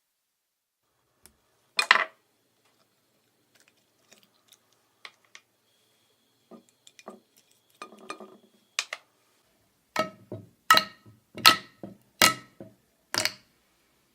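Hard objects clinking and tapping with a ringing tone: one loud clink about two seconds in, scattered light taps, then five loud ringing clinks about three-quarters of a second apart near the end.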